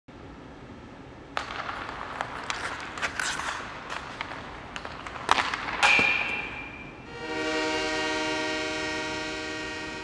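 Logo intro sound effects: a run of sharp clicks and hits, a brief high tone about six seconds in, then a sustained horn-like blast from about seven seconds that slowly fades.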